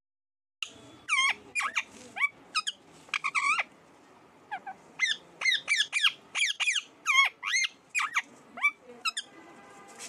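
Rose-ringed parakeet calling in a rapid run of short, high-pitched squawks that sweep up and down in pitch, starting about half a second in and going on almost without pause.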